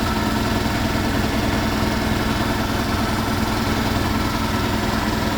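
Beko front-loading washing machine spinning its drum at speed, a steady motor hum and drum rumble with an even tone, while carrying an unbalanced load of a stuffed teddy bear.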